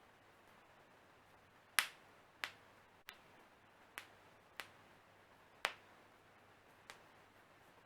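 Human joints cracking: about seven sharp pops at uneven intervals, the first and loudest about two seconds in.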